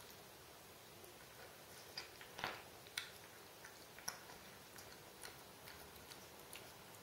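A cat eating wet food chunks from a bowl: faint, irregular chewing clicks and smacks, with a few louder ones between about two and four seconds in.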